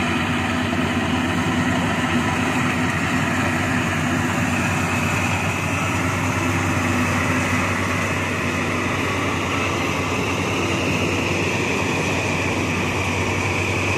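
Rice combine harvester running steadily while it cuts and threshes a standing rice crop: a constant engine drone mixed with the noise of its cutting and threshing machinery.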